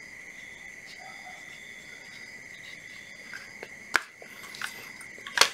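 Steady high-pitched trill of crickets, with a few light clicks and knocks in the second half, the sharpest about four seconds in and near the end.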